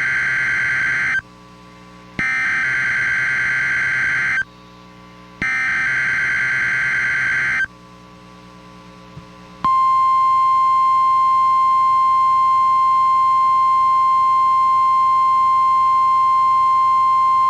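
NOAA Weather Radio test: the warbling modem-like data bursts of a SAME digital alert header, then the steady 1050 Hz warning alarm tone. First the tail of one burst, then two more bursts of about two seconds each with short gaps between. About ten seconds in, the single high alarm tone starts and holds steady.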